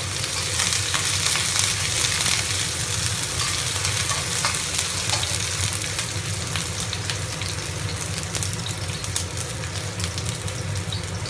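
Sliced green onion and Sichuan peppercorns sizzling and crackling in hot oil in a wok, stirred with a spatula in the first seconds and then left to fry. The sizzle is a steady hiss full of small pops, a little louder at first and easing slightly.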